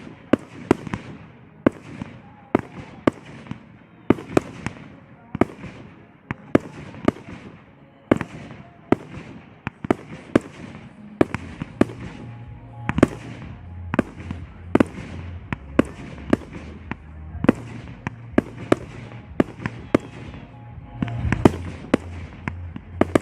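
Fireworks display: aerial shells bursting one after another in a steady run of sharp bangs, about one to two a second, each trailing off briefly. About halfway through, music with a low bass line comes in underneath.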